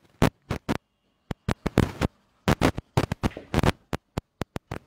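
A quick, irregular run of sharp clicks and taps, about four a second, with dead silence between each one.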